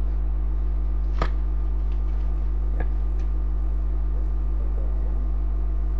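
Steady low electrical mains hum, with a sharp click about a second in and a fainter click near three seconds.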